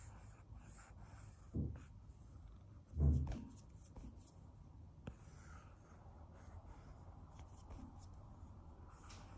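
Stylus tip tapping and sliding on an iPad's glass screen as lines are drawn. Two dull low thumps, about one and a half and three seconds in, are the loudest sounds.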